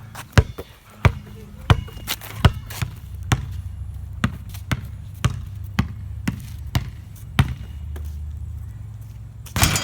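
A basketball being dribbled on hard ground, bouncing about twice a second.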